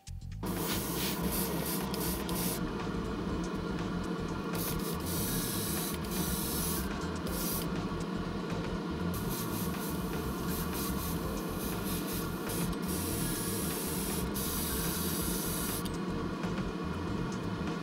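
Airbrush spraying paint in several hissing bursts of one to three seconds each, starting and stopping as the trigger is worked, over a steady low hum.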